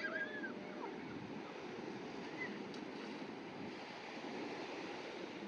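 Ocean surf washing steadily onto a beach, with a few brief high calls near the start.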